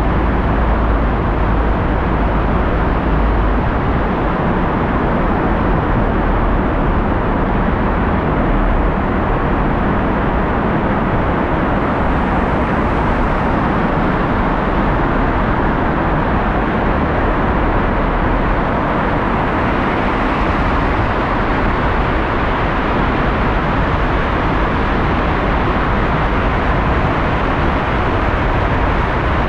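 Steady road noise of a car driving: an even rush of tyre and engine noise with no sudden events.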